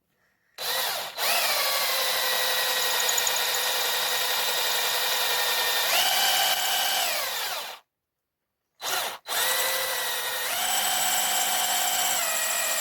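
Electric drill boring a hole, running in two long bursts with a short stop between. Its whine steps up in pitch and back down partway through each run.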